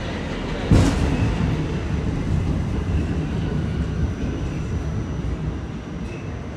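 Interior ride noise of an R46 subway car in motion: a steady rumble of wheels on rail, with one sharp bang about a second in.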